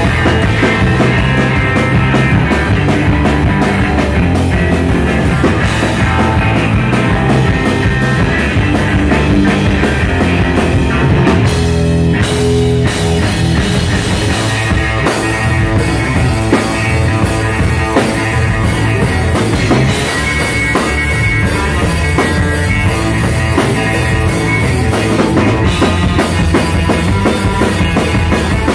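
Live rock band playing an instrumental passage on electric guitar, bass guitar and drum kit, loud and steady. The cymbals drop out briefly about twelve seconds in, then the full kit comes back.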